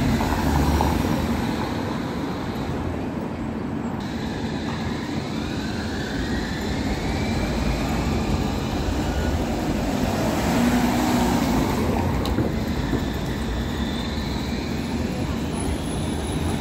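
TMK 2200 low-floor tram passing close by in street traffic, with a whine that glides up and down in pitch over the steady rumble.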